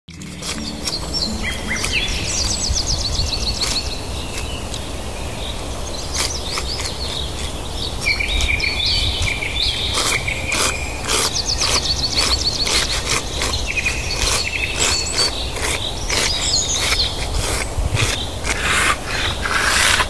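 Forest birds calling with quick trills and chirps, over a series of short, sharp, noisy puffs and rustles. The puffs come more often after about six seconds and are typical of a sloth bear snuffling and blowing as it digs into the ground for termites.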